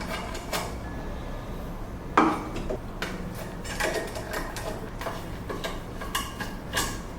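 Small metal parts and tools clinking and knocking as they are handled during disassembly of a cable reel. The loudest is a sharp knock about two seconds in.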